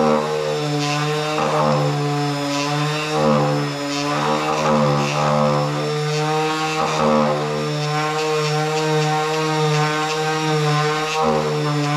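Electric power sander running steadily while sanding a fiberglass-reinforced plastic boat console, its motor hum holding a constant pitch with slight wavering in the higher tones.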